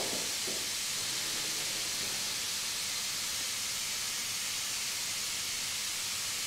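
Steady hiss with no distinct sounds over it.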